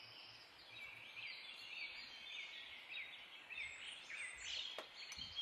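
Faint chirping of small birds in the background: many short calls that glide up and down, overlapping one another. There is one light click near the end.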